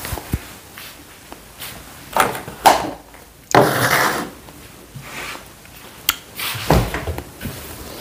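Kitchen handling sounds: scattered knocks and clatters, a rustling noise lasting about a second about three and a half seconds in, and a low thump near the end.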